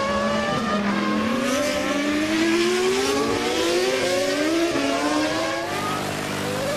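Formula 1 car's V10 engine accelerating, its pitch climbing steadily for about five seconds, then dropping and holding steady near the end.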